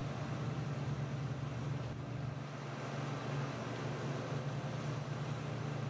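Steady low drone of a slipform paver's diesel engine running at a constant pace during a concrete pour.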